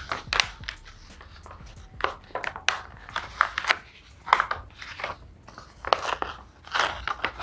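A paper mailer letter being torn open along its sides and unfolded, the paper tearing and crinkling in irregular bursts.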